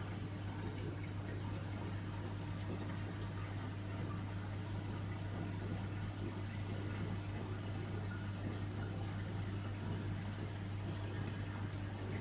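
Reef aquarium equipment running: a steady low pump hum under a constant wash of running water.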